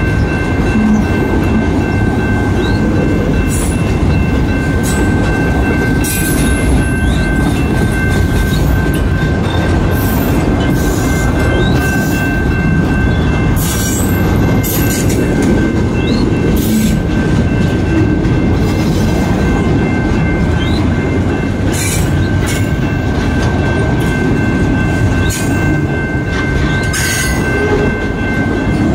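Freight train of autorack cars rolling past at a grade crossing: a steady rumble of steel wheels on rail with scattered clicks and clanks, and a steady high-pitched tone over it.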